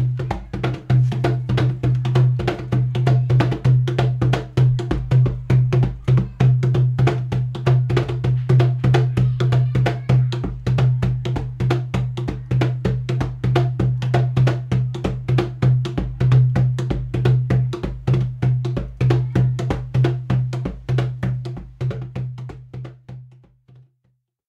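Drum percussion music with a fast, steady beat of dense strikes and a strong low drum tone, fading out near the end.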